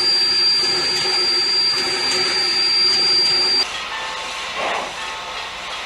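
Steam locomotive whistle blowing one long, steady blast that cuts off abruptly about three and a half seconds in, leaving a quieter hiss of steam.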